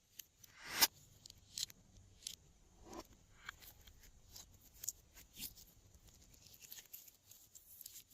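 Glossy slime being mixed, giving an irregular run of small sticky clicks and crackling pops, the loudest just under a second in.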